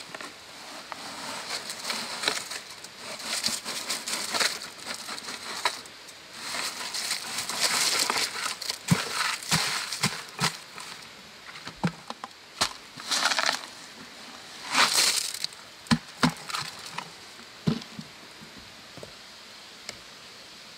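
Wet concrete sliding and slopping out of a tipped plastic bucket into a wooden form, with gritty scraping for the first ten seconds or so. Two shorter scrapes and a few sharp knocks follow in the second half.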